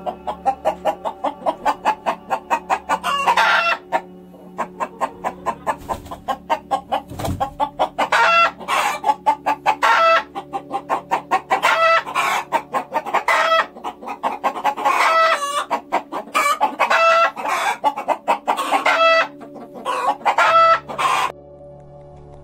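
Domestic hens clucking and cackling: repeated runs of rapid clucks, each building into a longer drawn-out call, stopping shortly before the end.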